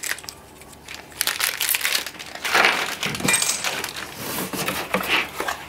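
Packaging rustling and crinkling as parts are handled in a cardboard box: plastic bag and cardboard, in uneven bursts that start about a second in.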